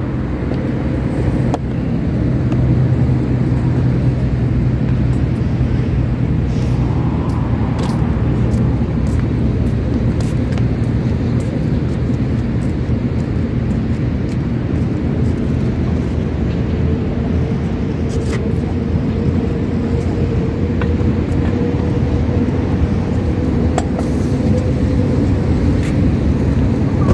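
Steady low rumble of motor traffic and vehicle engines, with a faint hum coming in about two-thirds of the way through and a few light clicks and knocks.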